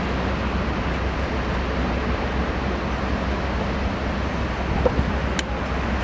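Steady airport background noise: a low rumble with a hiss over it, from aircraft and equipment around the terminal apron. There is one brief click near the end.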